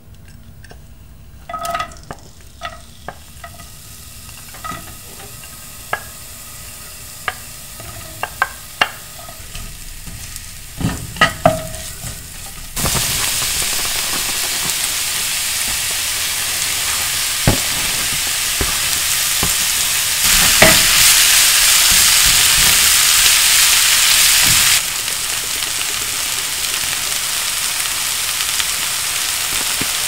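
A wooden spatula knocks against a plate and a nonstick frying pan. About a third of the way in, a steady sizzle starts suddenly as chopped onion, garlic and kimchi fry in hot oil and are stirred. The sizzle grows louder for a few seconds about two-thirds of the way in, then settles back.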